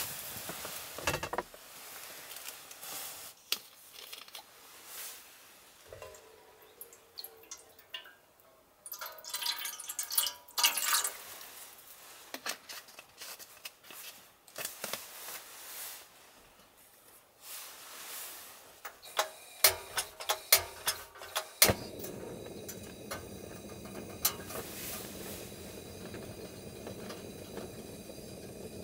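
Water poured from a plastic bottle into a black metal pot, splashing for a couple of seconds, with light knocks of the pot before it. Later comes a quick run of sharp clicks as the cassette gas stove is lit, and then the burner's steady hiss.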